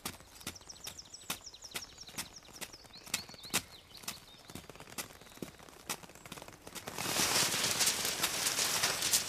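Footsteps on a dirt path, about two steps a second, with birds chirping in quick repeated notes during the first few seconds. About seven seconds in, louder background music swells in over the steps.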